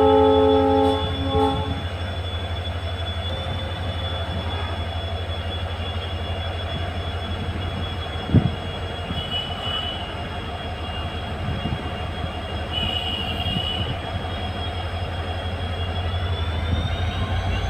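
WDP-4D diesel locomotive pulling out of a station: its horn sounds a chord for the first couple of seconds and stops, then the EMD two-stroke engine's steady low, pulsing hum carries on, with a single knock about eight seconds in. Near the end a high whine begins to rise as the train picks up speed.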